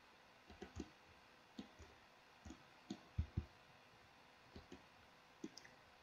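Faint, irregular clicks of a computer mouse and keyboard, about ten short clicks spread over a few seconds.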